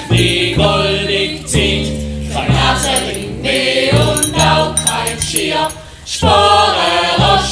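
A group of voices singing a song together over instrumental backing, in phrases about a second long.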